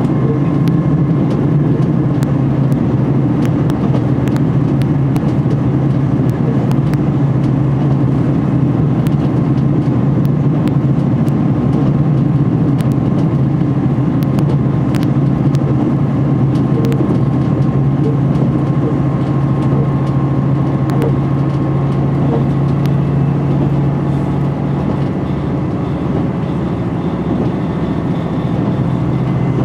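Cabin running noise of a KiHa 261 series diesel railcar travelling at speed: a steady low drone from the underfloor diesel engines and wheels on the rails, with a faint steady whine and scattered light clicks.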